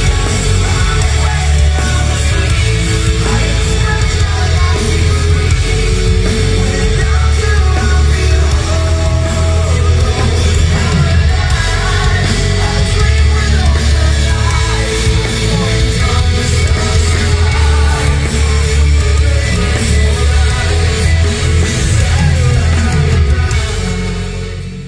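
Live heavy metal band playing loud, with electric guitars, drums and bass and a male singer, fading out near the end.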